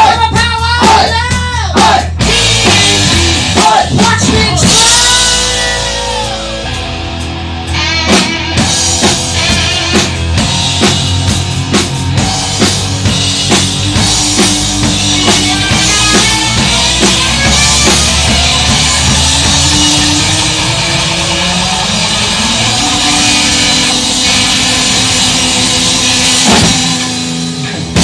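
A rock band playing loud in a rehearsal room: electric guitar, bass and drum kit. Bent, wavering guitar notes come in the first seconds, then a long held, building passage with drum rolls and a rising bass line, with a final big hit just before the sound dies away.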